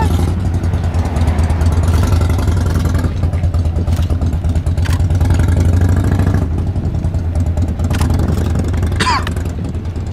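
Car engine idling, a steady low hum heard from inside the car's cabin, with a few sharp clicks and a brief high-pitched glide about nine seconds in.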